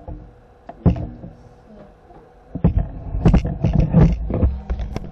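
Irregular knocks, bumps and clicks of handling, one about a second in and a busy cluster in the second half.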